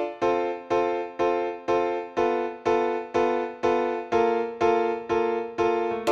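Background music: an electric piano or keyboard striking a repeated chord about twice a second, each one fading before the next.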